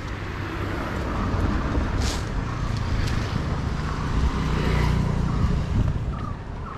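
A motor vehicle passing close by, its engine growing louder over about five seconds and then fading near the end.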